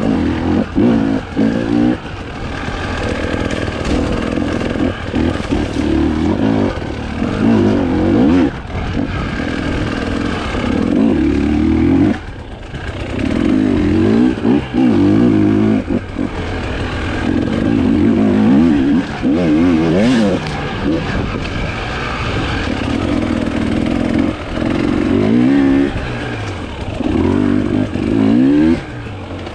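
Husqvarna TE 300i single-cylinder two-stroke enduro engine revving up and down again and again as the throttle is opened and closed over rough terrain. The sound drops off briefly several times, most clearly about twelve seconds in, when the throttle is shut.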